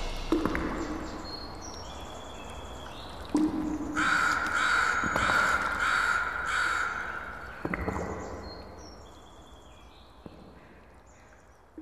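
A run of about six loud, evenly spaced calls, about two a second, in the middle, with faint high tones stepping downward before and after them and a few soft knocks.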